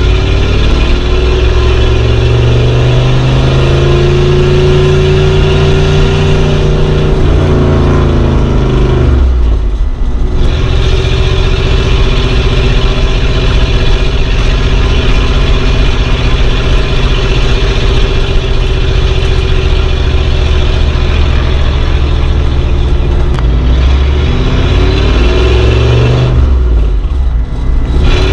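A 1950s car being driven, its engine running under load. The engine note climbs and falls, and the revs drop away briefly twice, about ten seconds in and again near the end.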